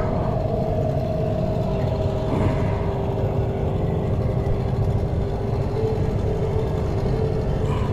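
Small outboard motor idling steadily, a low rumble with a steady hum.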